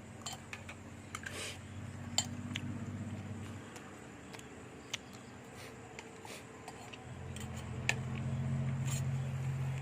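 Spoon and dish clinking against plates while eating, in scattered light clicks. Under it runs a low mechanical hum that fades after a few seconds and comes back louder near the end.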